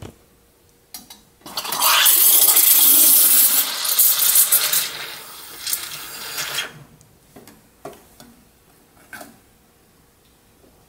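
Espresso machine steam wand hissing loudly as it steams milk in a stainless steel pitcher, starting about a second and a half in and fading out about five seconds later. A few light clicks and knocks follow.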